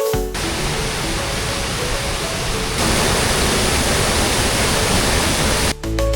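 Steady rush of a waterfall on the Areuse river, stepping louder about halfway through. Background music stops just after the start and comes back near the end.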